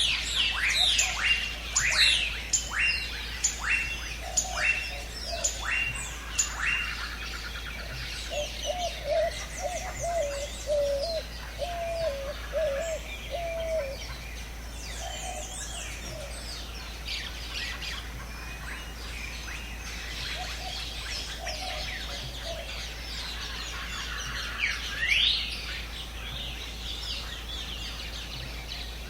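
Jungle birds calling together. A series of quick falling chirps repeats through the first several seconds, and a lower run of wavering notes follows from about 8 to 14 seconds in. Scattered calls continue over a steady background hush.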